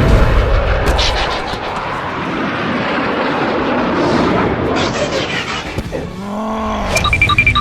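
Added action sound effects: a loud, steady rush of vehicle-like noise. Near the end come a bending, warbling tone and a few short high beeps and clicks.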